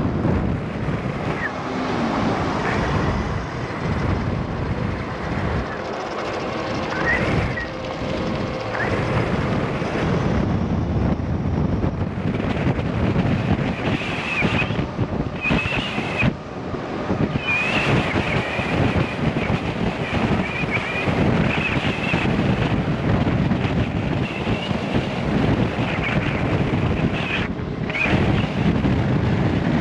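Wind rushing over the microphone of a camera on a moving e-bike, a steady rush that swells and dips. From about halfway through, faint high wavering whistles sound over it.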